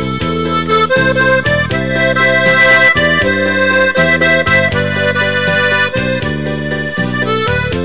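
Instrumental music, an accordion-led tune of sustained reedy chords and melody notes that change every second or so.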